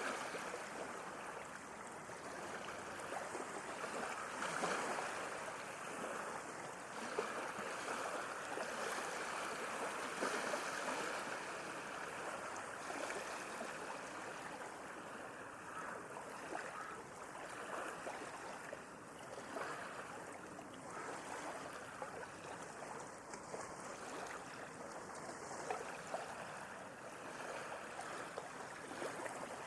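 Small sea waves washing and lapping at the shore: a continuous wash of water that swells and eases every few seconds.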